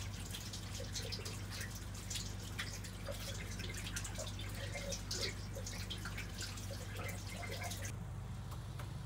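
Water running from a tap and splashing and dripping into a small washbasin as hands are washed under it, cutting off abruptly near the end. A steady low hum runs underneath.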